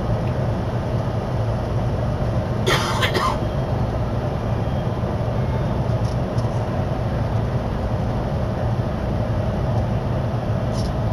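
Steady low rumble and hum of a Keihin-Tohoku Line commuter train, heard from on board, with a short hiss about three seconds in.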